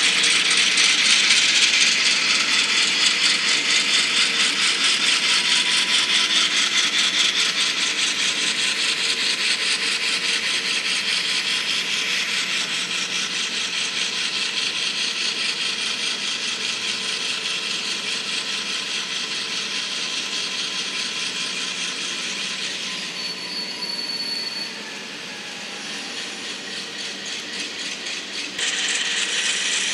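N-scale model train rolling along the track: a dense, rapid clicking rattle of small wheels on rails and track joints. It slowly fades as the train moves off, thins out about three-quarters of the way through, and comes back suddenly louder near the end.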